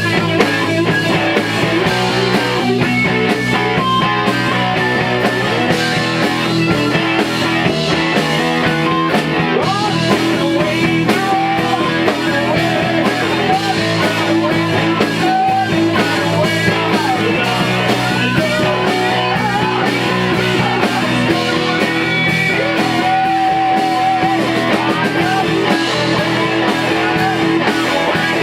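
Rock band playing live in rehearsal: electric guitar over drums, with no vocals.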